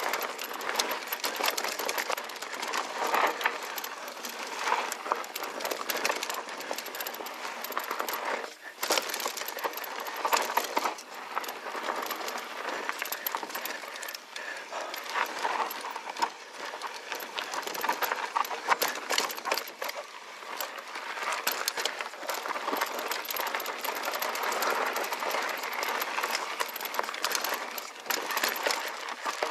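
Mountain bike rolling fast down a dry dirt singletrack: tyres crunching over dirt and loose rock, with the bike's chain and frame clattering over the bumps. The noise drops for a moment about eight and a half seconds in, then the clatter returns.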